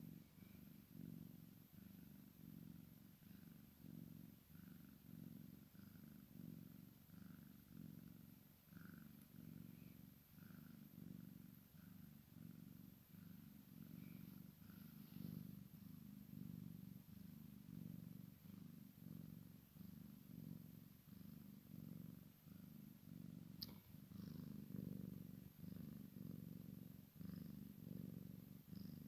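A cat purring softly and continuously, the low rumble swelling and fading in a steady rhythm.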